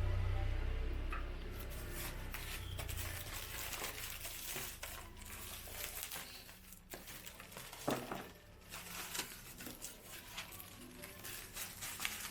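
Packaging and parts being handled: scattered rustling with small clicks and knocks, over a low hum that fades away in the first few seconds.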